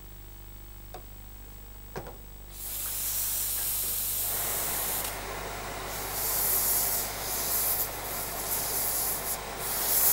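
Steam gun on a dry-cleaner's spotting table hissing as it flushes steam through stained fabric. It starts about a quarter of the way in after a couple of soft clicks, and comes in short spurts in the second half.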